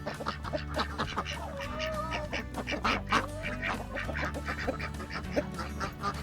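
Farm fowl calling with many short, rapid calls, over background music with a steady bass line.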